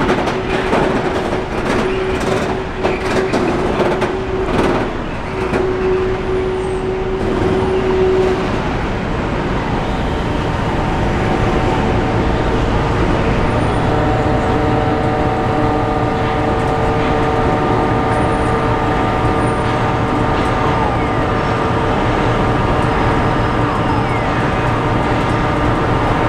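Train on an industrial railway: wheels clack over rail joints with a single held tone for about the first eight seconds. Then it settles into a steady drone carrying several held tones.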